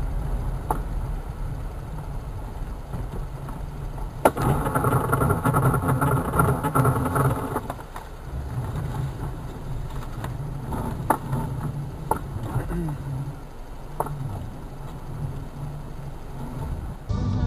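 Car road and engine noise as picked up by a dashcam: a steady low rumble. About four seconds in a sharp knock starts a louder stretch of about three and a half seconds, and a few lighter clicks follow later.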